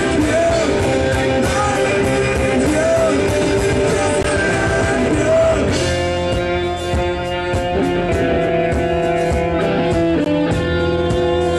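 Rock band playing live through stage amplifiers: distorted electric guitars, bass and drums, with singing. About halfway through, the guitars settle into held chords over a steady drum beat.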